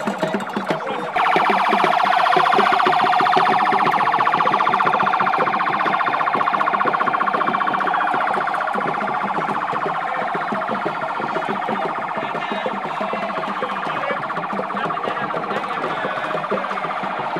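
Vehicle siren sounding, starting suddenly about a second in and gradually getting quieter over the second half.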